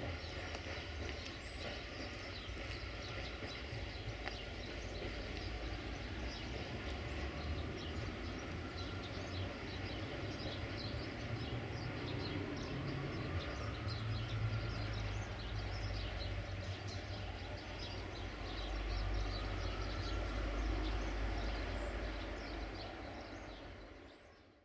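Outdoor ambience beside railway tracks: small birds chirping over a steady low rumble. The sound fades out at the very end.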